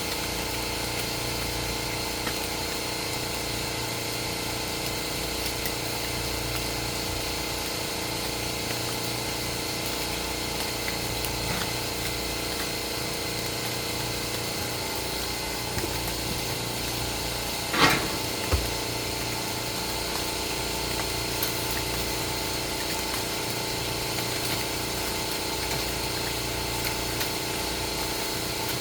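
Steady motor hum made of several fixed tones, running unchanged, with one short sharp scraping noise about 18 seconds in and a small knock just after.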